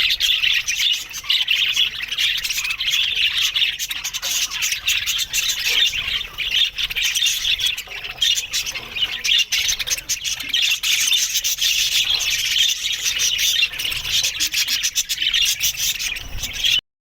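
A colony of budgerigars chattering and warbling together: a dense, continuous mix of many overlapping chirps and squawks. It stops abruptly near the end.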